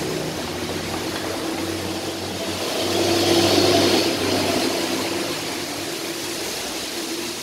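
A machine running steadily with a hum and whir, swelling louder with a rising hiss about three seconds in, then easing off.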